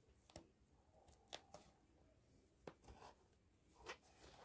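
Near silence, with about five faint, short clicks and scrapes from a needle and thread being worked by hand through a sneaker's sole and upper.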